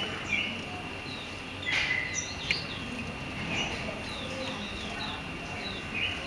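Red-vented bulbul splashing in a shallow bird bath, a few brief splashes about two seconds in and again later, while small birds give short, quick downward chirps throughout.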